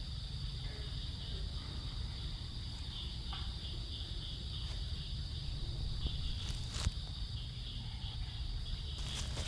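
Insects chirring steadily, a high continuous band with a faint pulsing to it, over a low rumble. A few faint clicks come near the end.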